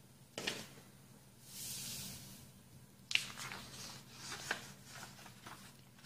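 A sheet of printer paper handled on a wooden table: a sharp slap about half a second in as it is laid down, a brief high swish, then crinkling and crackling rustles as it is folded in half and the crease pressed down.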